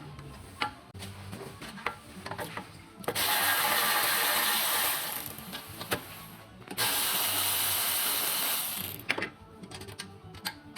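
A power tool runs in two bursts of about two to three seconds each, with a hissing rush of sound. Scattered clicks and clinks of metal tools come before and after the bursts.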